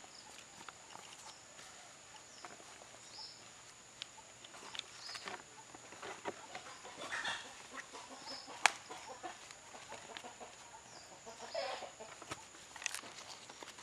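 Fresh banana leaf crinkling and rustling as it is folded and pressed around a whole fish on a wooden board, with a sharp tap a little past the middle. A steady high-pitched hum runs underneath.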